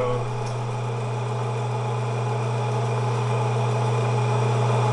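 Teletype machine's electric motor running with a steady hum, with no clatter of keying or printing, growing slightly louder over the stretch.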